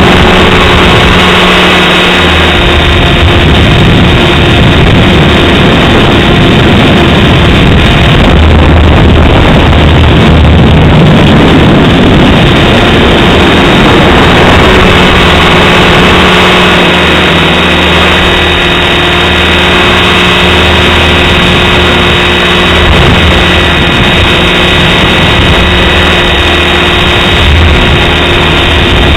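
Align T-Rex 550 RC helicopter in flight, its rotor and motor running at a steady governed headspeed of about 2450 rpm, giving a constant hum. Heavy wind buffets the microphone, making a loud rushing noise over the hum.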